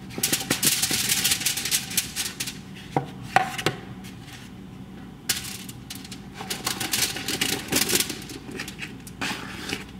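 Sliced chicken andouille sausage and cut bell peppers sliding off paper plates onto a foil-lined sheet pan: quick runs of light clicks and foil crinkles in several spells, with a couple of sharper knocks about three seconds in.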